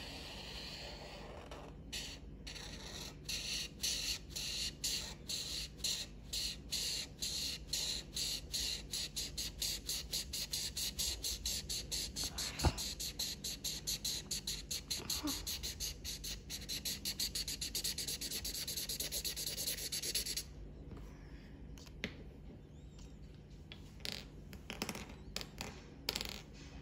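Felt-tip marker scribbling back and forth on drawing paper to fill in a colour: a rapid run of scratchy strokes, a few a second and getting faster, that stops about twenty seconds in, followed by a few single strokes. There is one sharp tap about twelve seconds in.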